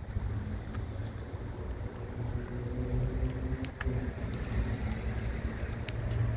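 A vehicle engine humming under a steady low rumble, with a few faint clicks.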